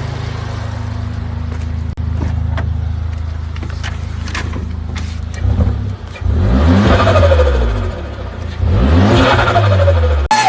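Car engine idling steadily with light ticking, then revved up and let back down twice, each rev louder than the idle. It cuts off abruptly near the end.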